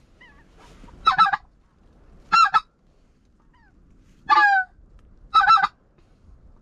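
Goose honking: four loud calls of two or three quick notes each, about a second or two apart, with fainter calls between them.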